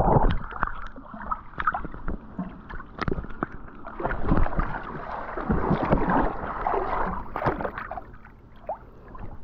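Water sloshing and gurgling close to a camera held at or under the surface of a tiled pool, with many irregular splashes and handling knocks.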